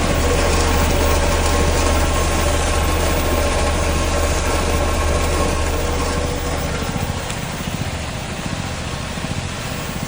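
Vibrating sieve machine (vibratory flour sifter) running, with a steady low hum and a mechanical buzz. The low hum weakens about seven seconds in.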